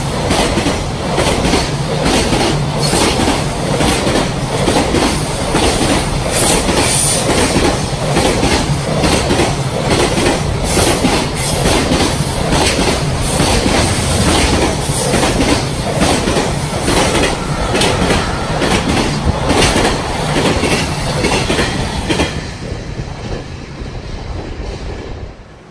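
Freight container wagons passing close at speed: a dense rolling rush with a fast, repeating clickety-clack of wheels over rail joints. The sound fades away over the last few seconds as the end of the train goes by.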